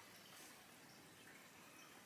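Near silence: faint, steady room hiss.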